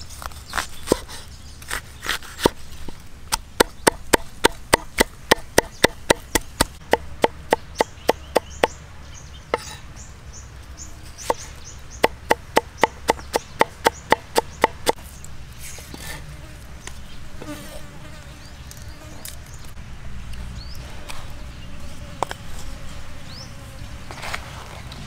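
Cleaver chopping onion on a round wooden chopping board: a few single strokes, then quick even chops about three a second in two runs, stopping about fifteen seconds in.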